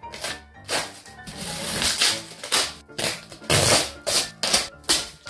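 Packing tape being slit with scissors and ripped off a cardboard box: a string of short tearing sounds, with a longer pull about two seconds in. Background music plays underneath.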